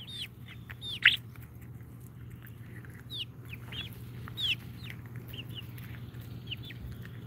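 Several backyard hens clucking softly with short falling chirps as they peck at food, with one louder call about a second in.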